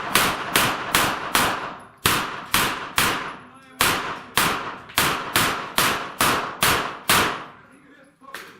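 Rapid string of pistol-calibre gunshots, about two to three a second, around seventeen in all. There is one brief hitch near the middle, the string stops about a second and a half before the end, and one more shot follows near the end.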